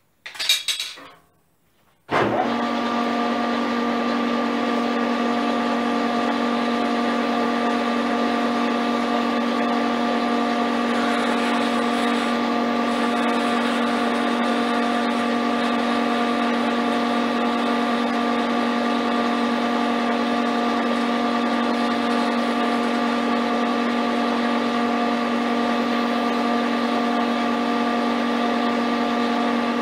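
Metal-turning lathe running steadily, a constant mechanical hum with a gear whine that starts abruptly about two seconds in, after a brief noise.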